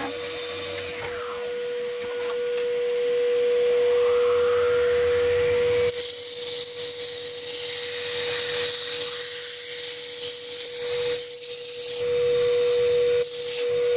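Record Power DML320 wood lathe running with a steady hum while a turning tool cuts the tip of the spinning wood blank. About six seconds in the sound changes abruptly to a loud hiss of sandpaper held against the spinning wood.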